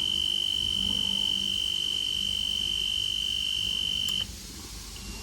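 Battery-powered alarm sounding its test tone: one continuous high-pitched beep that cuts off about four seconds in.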